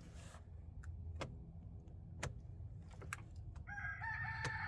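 A long bird call begins about three and a half seconds in and is held to the end, over a low steady hum, with a few light knocks before it.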